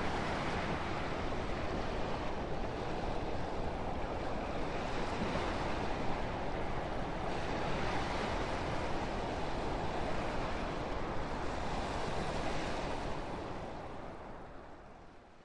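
Wind blowing steadily, a full rushing noise without distinct gusts, fading out near the end.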